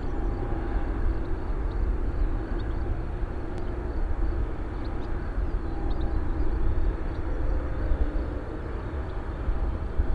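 Wind rumbling on the microphone over a steady hiss, with the faint, slowly drifting drone of distant jet engines.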